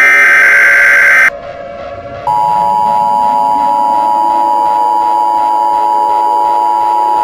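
The last burst of an Emergency Alert System SAME header: harsh screeching digital data tones lasting about a second. About two seconds in, the two-tone EAS attention signal starts and holds steady. A low droning background tone rises in pitch underneath.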